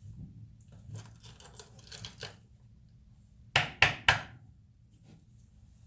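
Small metal fuel-injector parts clinking and tapping as they are handled. The lighter clinks come about a second in, and three sharp clicks in quick succession come a little past the middle.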